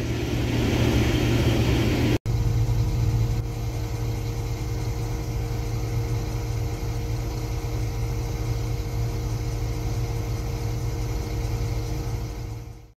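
Combine harvester running with a steady low drone and a few held tones, broken by a split-second dropout about two seconds in and fading out just before the end.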